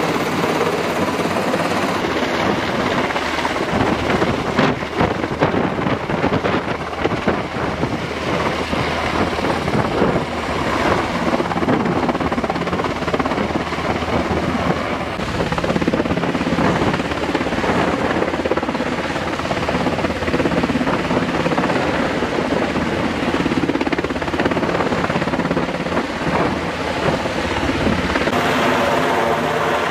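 Helicopter overhead, its rotor and engines running loud and steady: a fast rotor chop under a dense rush of noise. Near the end the sound settles into a steadier hum with a held pitch.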